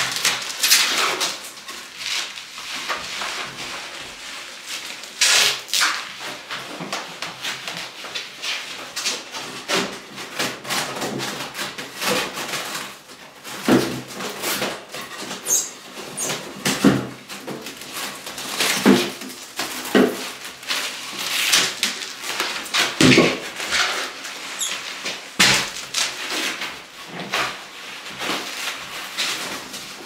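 Plastic stretch wrap being pulled off its roll and wound around a tall refrigerator: repeated crackling and rustling of the film with each pull, and a few short high squeals.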